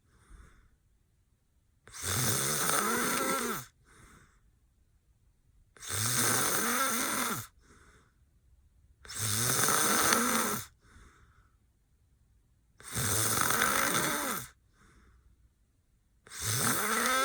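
A man snoring hard in deep sleep: five long, loud snores, each about one and a half seconds, coming roughly every three and a half to four seconds. Each snore rises and then falls in pitch, with a faint breath between snores.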